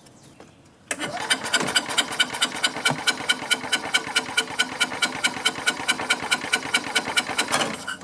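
Gas golf cart engine cranking on its starter for about seven seconds, an even chugging of roughly six to seven strokes a second, without firing or catching. This is a crank-but-no-start, which the owner traces to fuel not reaching the carburetor.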